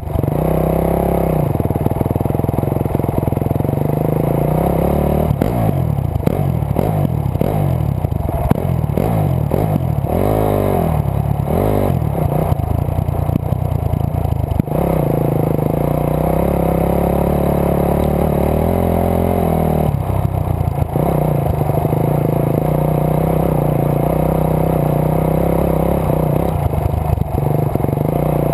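Dirt bike engine running loud and close. It holds steady revs for long stretches and revs up and down repeatedly between about five and fifteen seconds in, with shorter changes in revs around twenty and twenty-seven seconds.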